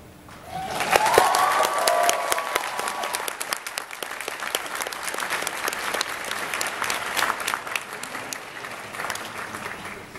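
Large audience applauding, breaking out about half a second in, with a cheer near the start, then thinning out toward the end.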